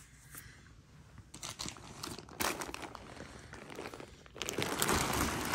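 Crinkling and rustling of a folded truck-bed tent's shiny synthetic fabric being handled out of its storage bag: a few scattered crackles at first, then a denser, louder rustle near the end.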